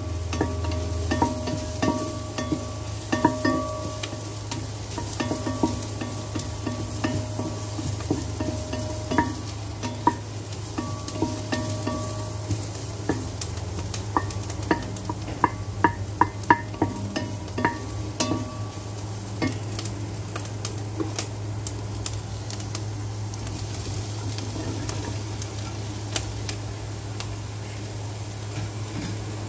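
Wooden spoon stirring and knocking against an enamelled pot as onion and garlic sizzle in oil. The knocks come thickest in the middle and stop near the end, leaving the sizzle and a low steady hum.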